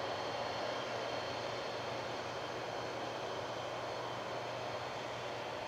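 Boeing 747-400's jet engines running at low power as it taxis: a steady rush of jet noise with a faint high whine.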